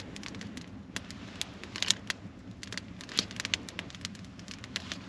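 Small wood fire crackling, with irregular sharp snaps and pops, some louder than others, over a low steady rush.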